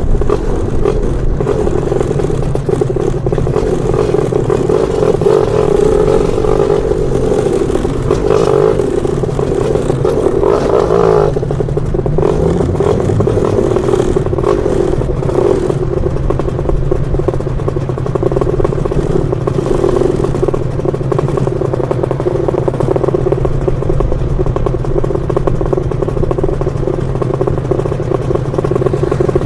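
Lambretta scooter's two-stroke BFA 325-type engine running under way, its note steady apart from a brief drop and pick-up in revs about eleven to thirteen seconds in.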